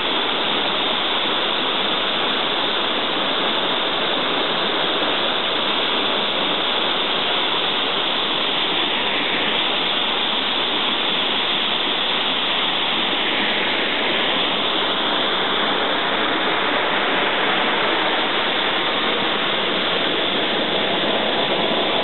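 Waterfall in full spate after heavy rain, muddy white water pouring over rocks with a steady, loud rush.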